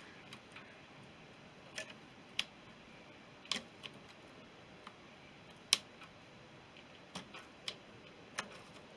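Irregular light clicks and taps of small metal tools and parts being handled while working on a motorcycle's primary drive and clutch, with one sharper knock a little over halfway through.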